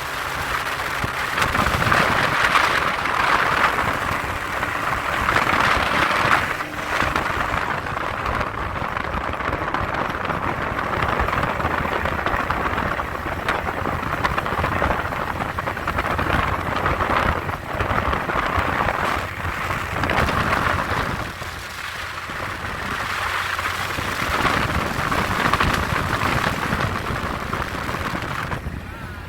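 Steady rushing noise that swells and fades every few seconds, with a low engine hum underneath, as heard riding in an open off-road jeep.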